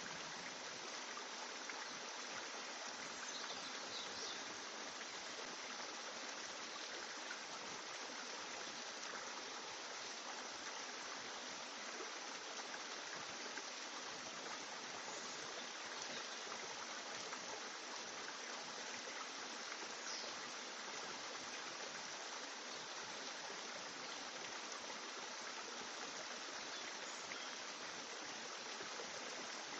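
Steady, even rushing noise like running water, with no change in level.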